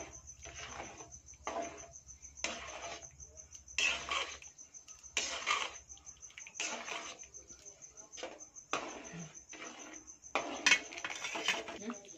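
Steel ladle stirring and scraping in a metal pan as semolina is mixed into boiling vegetable kichadi, in short irregular strokes.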